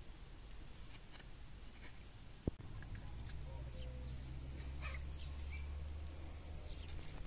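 Quiet rural outdoor ambience with faint bird calls and animal sounds, a single sharp click about two and a half seconds in, and a low steady rumble from about three seconds until near the end.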